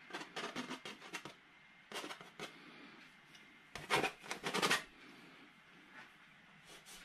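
Palette knife dabbing and scraping oil paint onto a stretched canvas, in three short runs of quick scratchy strokes, the last about four seconds in being the loudest.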